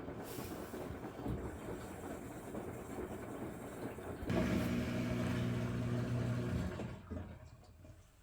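LG front-load washing machine running a test cycle: a noisy wash sound, then about four seconds in a steady motor hum for a couple of seconds as the drum turns, stopping near the end.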